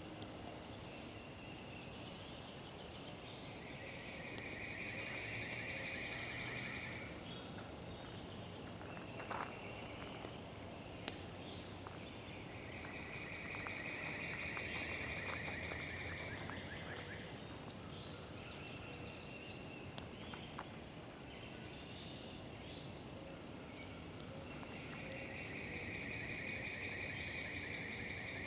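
An animal's pulsing trill, each about three seconds long, repeated three times roughly ten seconds apart over steady outdoor ambience, with a few sharp pops from a smouldering campfire in between.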